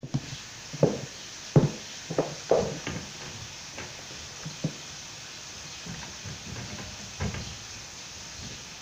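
High-heeled shoes clicking on a tiled floor, a handful of sharp steps in the first three seconds, then a few quieter knocks and clacks from handling a wooden cabinet.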